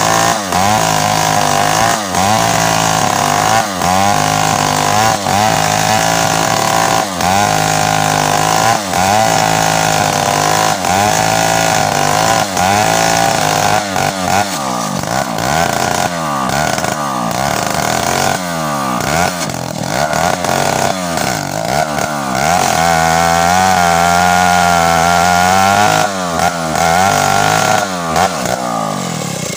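Stihl two-stroke chainsaw cutting through a felled tree trunk at high revs, its pitch dipping about once a second as the chain bites into the wood. It holds steady at full speed for a few seconds late on, then drops away right at the end.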